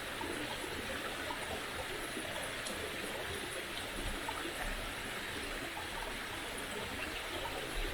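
River water running steadily, a constant rushing with no breaks.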